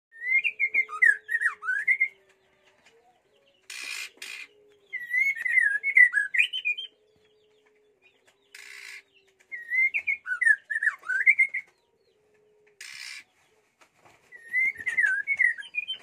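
White-rumped shama singing: four short whistled, warbling phrases a few seconds apart, with brief harsh hissing bursts in the gaps between them.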